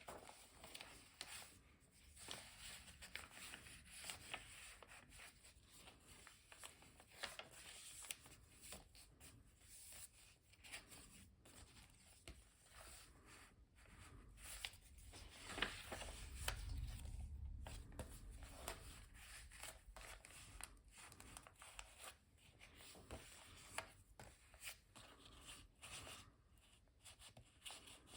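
Pages of a handmade paper junk journal being handled and turned: faint paper rustling with small crackles and taps throughout, and a brief low rumble a little past halfway.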